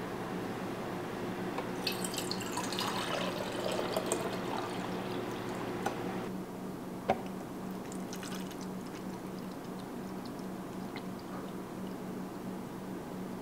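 Milk tea dripping and trickling through a fine mesh strainer into a glass pitcher, stopping about six seconds in. A single sharp knock follows about a second later.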